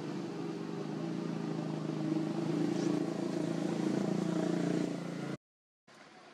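An engine running steadily, cutting off suddenly about five seconds in, followed by a moment of silence and a fainter background.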